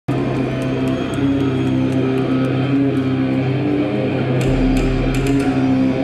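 A rock band playing live, led by electric guitar, with held, ringing notes over a steady low tone; a deeper bass note comes in about four and a half seconds in.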